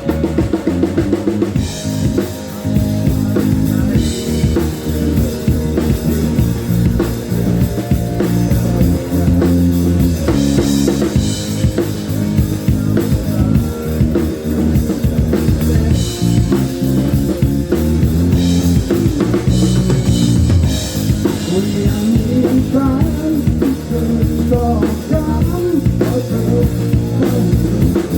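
Loud rock music with a full drum kit and bass, played at a sound check. In the last few seconds a lead melody bends up and down in pitch.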